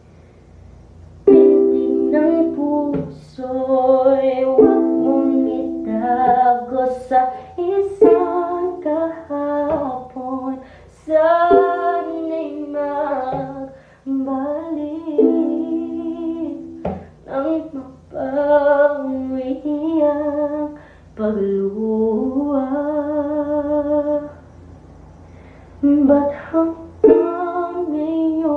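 Ukulele strummed as accompaniment to a voice singing a slow melody, starting about a second in.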